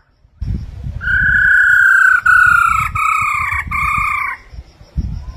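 Black-throated laughingthrush singing: a run of about four long, clear whistled notes, each falling slightly in pitch, from about one second in to past four seconds, over a low rumble.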